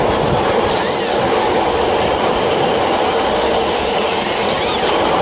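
Several RC drift cars sliding in a line on a smooth indoor floor: a steady hiss of hard plastic tyres scrubbing the surface, with electric motor whines rising and falling as the cars rev, once about a second in and again near the end.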